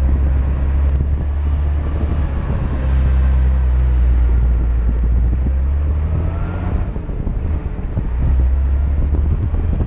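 Classic Mercedes-Benz car driving, its engine giving a steady low drone under wind and tyre noise. The engine note eases off about six seconds in, then picks up again about two seconds later.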